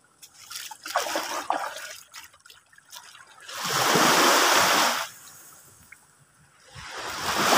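Water poured and splashed over a large fish to wash it, in two pours: a long one a few seconds in and another near the end, with a few knocks before them.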